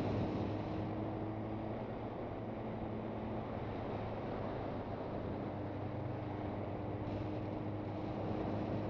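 Suzuki GSX650F's inline-four engine running at a steady pitch while riding, with wind rushing over the microphone.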